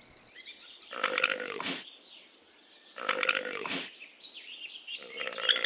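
Llama calling: two short, throaty calls about two seconds apart, with a third starting near the end.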